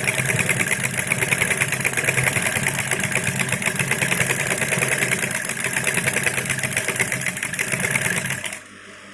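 Brother industrial high-speed sewing machine running with a buttonhole attachment, stitching a buttonhole in a fast, even stitch rhythm. It stops suddenly near the end.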